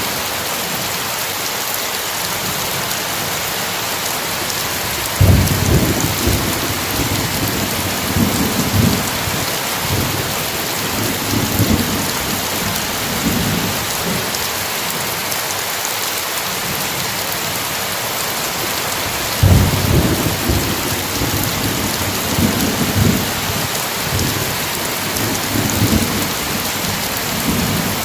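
Steady heavy rain with two rolls of thunder, one starting about five seconds in and another about twenty seconds in, each rumbling on in waves for several seconds.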